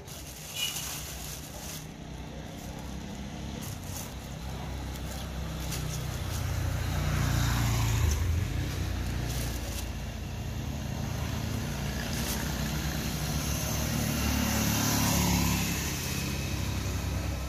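Low rumble of road traffic going by, swelling about a third of the way in, with short crackles of a thin plastic bag being handled as fruit rinds are dropped into it.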